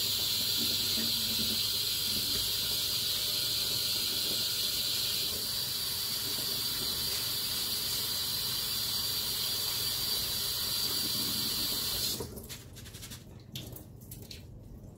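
Kitchen tap running in a steady hiss as pudding rice is rinsed under it, stopping abruptly about twelve seconds in. A few light knocks follow.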